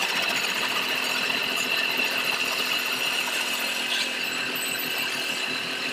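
Hand-held turning chisel cutting a spinning wooden workpiece on a wood lathe: a steady scraping hiss of wood being shaved, with a constant high tone running under it.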